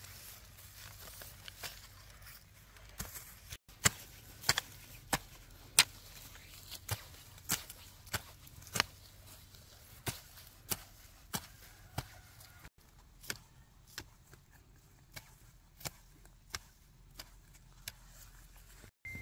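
A steady series of sharp chopping strikes, roughly one every two-thirds of a second, broken by a couple of brief cuts.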